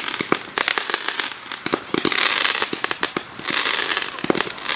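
Fireworks going off: repeated spells of loud hissing, broken by many sharp pops and crackles.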